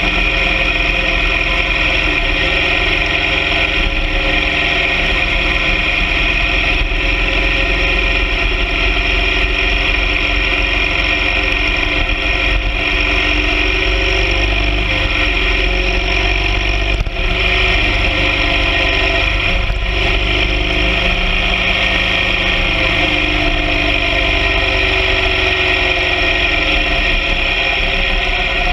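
BMW R 1200 GS Adventure sidecar rig's boxer twin engine running steadily at an even speed.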